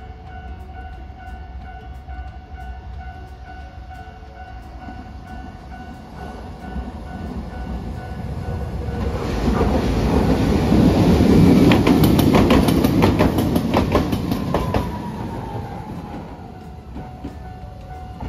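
Hiroden articulated streetcar approaching and passing on ballasted track, its wheels clicking over the rail joints as it goes by about halfway through, with a falling whine, then fading away.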